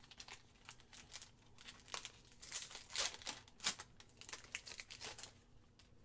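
Foil trading-card pack being torn open and crinkled by hand: a run of sharp crackles, loudest and densest around the middle, stopping shortly before the end.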